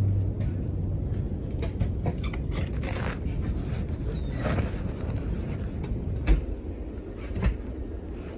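Footsteps and camera-handling knocks over a steady low rumble as a person walks out through a door onto a wooden deck, with two sharp thumps about six and seven and a half seconds in.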